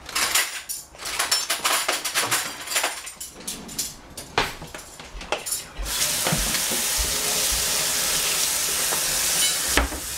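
Small sweet peppers being handled and rolled about on a plastic cutting board: a quick run of light clicks and knocks. About six seconds in, a kitchen tap is turned on and water runs steadily into the sink, a constant hiss.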